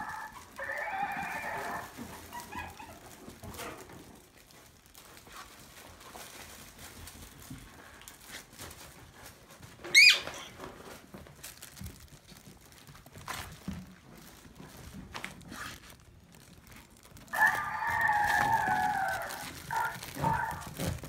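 Maltese puppies yipping and squealing: a short bout of high calls near the start and a longer one of about three seconds near the end, with a single sharp, rising squeal about ten seconds in.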